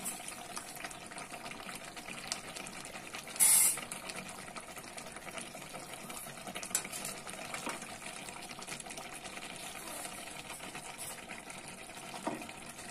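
Thick chicken curry simmering in its pot with a steady low bubbling sizzle. A short, louder rasp about three and a half seconds in.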